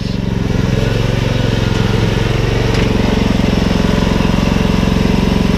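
Toro TimeCutter zero-turn riding mower's engine running steadily as the mower is driven up onto a utility trailer.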